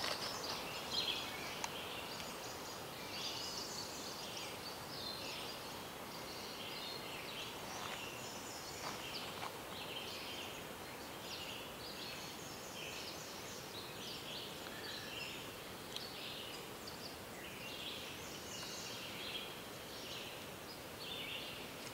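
Quiet outdoor background: a steady hiss with scattered short high chirps throughout, and a few faint clicks.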